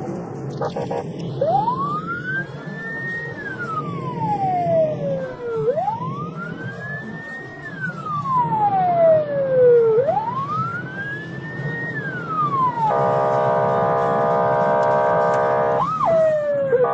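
Emergency vehicle siren in a slow wail: three rising-and-falling cycles of about four seconds each, then a steady horn-like blare for about three seconds and a short quick yelp near the end, over low vehicle rumble.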